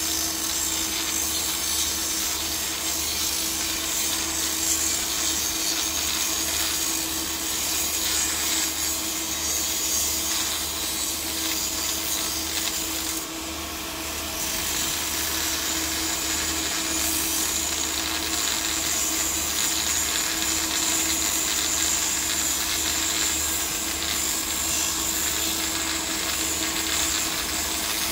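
Electric angle grinder grinding the weld joint of a P22 alloy-steel pipe, running steadily with a high whine. It eases off briefly about halfway through.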